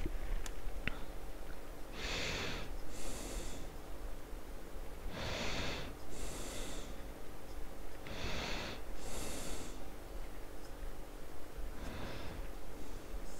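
A person breathing heavily close to the microphone: paired in-and-out breaths, the second of each pair hissier, repeating about every three seconds, four times.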